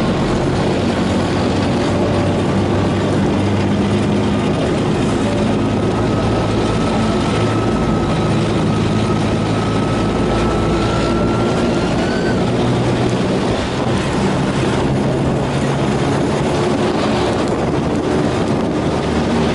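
Armoured vehicle driving at steady speed: a loud, unbroken mix of engine running and running-gear rumble, with a faint high whine that rises slightly and stops about twelve seconds in.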